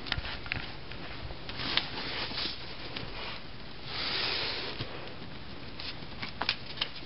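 Rustling and handling noise, with scattered small clicks and a longer rustle about four seconds in.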